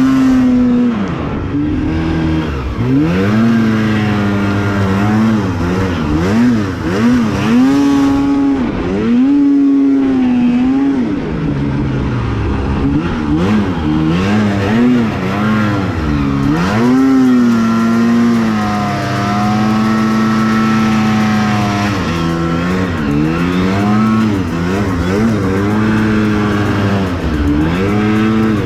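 Two-stroke snowmobile engine revving up and down over and over as the sled works through deep powder, with a longer steady stretch at high revs partway through.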